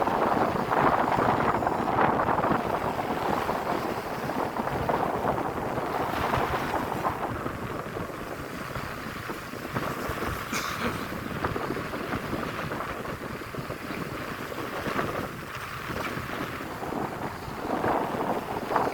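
Wind gusting across the microphone over a rush of sea, heaviest in the first several seconds, then easing.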